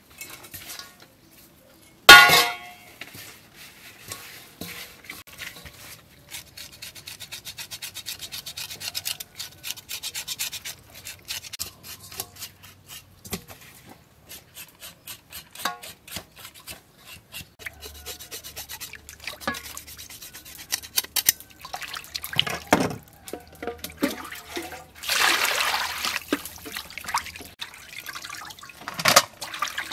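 Hands rubbing and washing fish with salt in a metal basin of water: wet scraping, sloshing and irregular clicking, with a loud knock about two seconds in.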